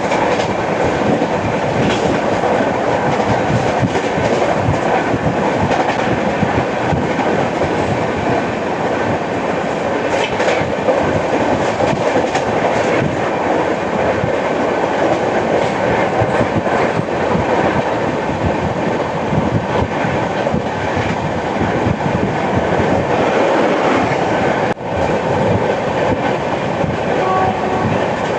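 Coaches of the 12810 Howrah–CSMT Mail running at speed: a steady loud rumble of wheels on rails, with clickety-clack over rail joints and one brief drop in the noise near the end.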